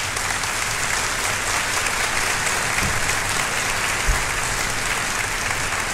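Audience applauding steadily, a dense even clatter of many hands clapping, with a dull low bump about four seconds in.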